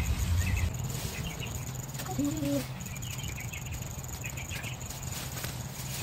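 Backyard ambience: an insect's steady high buzz and small birds chirping on and off, with leafy branches rustling as they are handled. A brief murmur of a voice comes about two seconds in.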